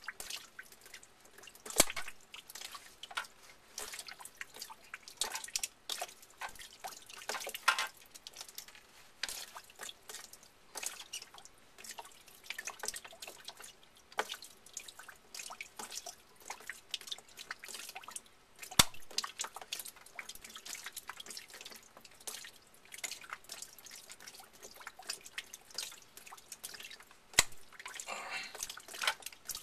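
Water dripping irregularly from a cut, shut-off PEX hot water line: many small drips still coming out of the line. Three sharp clicks stand out, about two seconds in, a little past the middle, and near the end.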